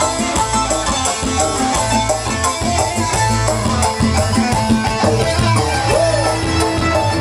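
Live dangdut band music with a steady beat: electric guitar and Korg arranger keyboard playing over bass and drums.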